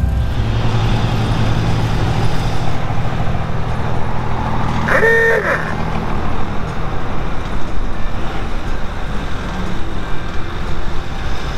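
Vintage car's engine running and road and wind noise while driving, with one short horn honk about five seconds in that rises and falls in pitch.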